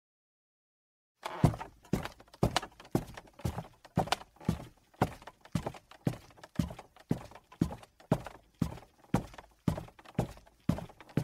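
Footsteps on wooden stairs: a steady tread of about two steps a second, starting about a second in after a moment of silence.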